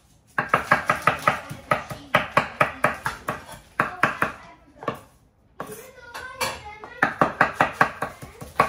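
Knife chopping fresh cilantro on a cutting board in quick runs of sharp strokes, about six a second. The chopping pauses about halfway through, then starts again.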